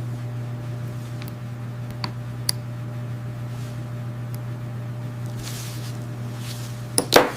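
A steady low machine hum, with a few sharp light clicks and a brief loud rasp near the end.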